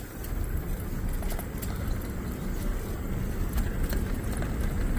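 Wind rumbling on the microphone and the rolling noise of an electric bike underway on a paved trail, with scattered small clicks and rattles.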